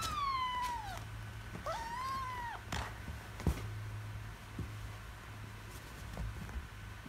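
Kitten meowing twice while play-wrestling. The first meow slides down in pitch, and the second follows about a second and a half later. A few sharp knocks come from the scuffle just after, the loudest a little over three seconds in.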